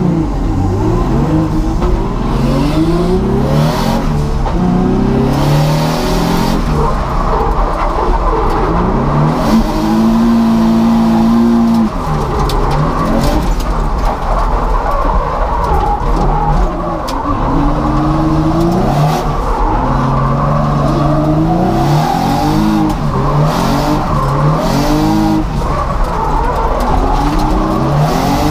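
Drift car engine revving up and falling back again and again through a drift run, with tyre noise from the sliding tyres. Its revs are held high and steady for about two seconds around ten seconds in.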